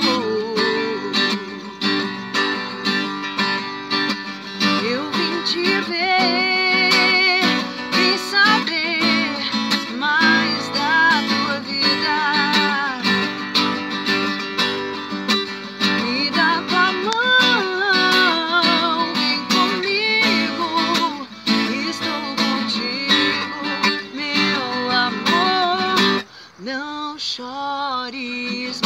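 A woman singing, with vibrato on held notes, over a strummed cutaway acoustic guitar. Near the end the strumming briefly drops away.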